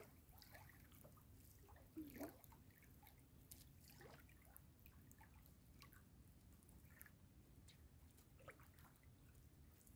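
Near silence with faint drips and small trickles of water, and a brief soft sound about two seconds in.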